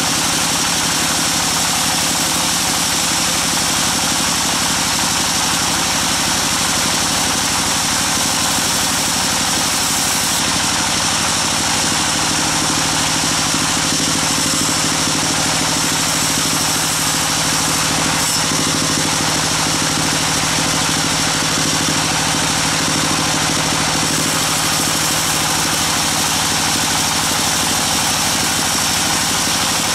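Large band sawmill running, its band saw blade cutting through a thick timber slab with a steady, dense rushing noise over the machine's constant low hum.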